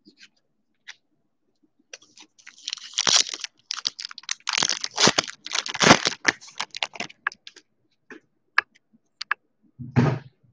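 A foil trading-card pack being torn open by hand, its wrapper crackling and crinkling for several seconds. A few single clicks follow as the cards are handled.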